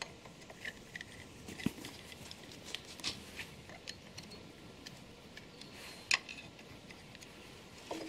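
Scattered light metallic clicks and taps of a hand driver working the screws on the steel arms of a shaper gear cutter, with a louder tap about six seconds in and another at the very end.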